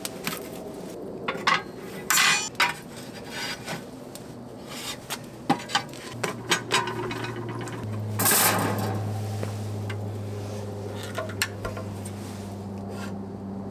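Lump charcoal pieces clinking, knocking and scraping as they are shifted in the firebox of a ceramic kamado grill, then a ceramic heat deflector plate set down over the coals with knocks and scrapes. A louder scrape comes about eight seconds in, and a low steady hum runs under the rest.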